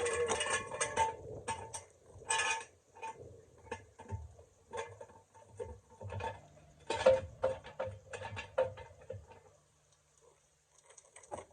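Irregular metallic clinks and knocks of tools and parts being handled during hands-on work under a vehicle. They come thick at first, thin out, and nearly stop in the last couple of seconds apart from a few clicks near the end.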